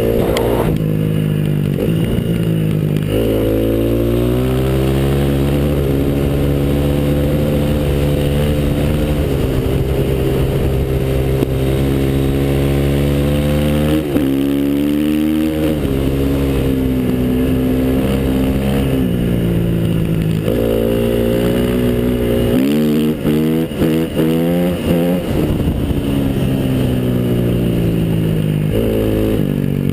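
Small motor vehicle's engine running under changing throttle: its pitch holds steady for long stretches, then rises and falls in several quick revs about two-thirds of the way through.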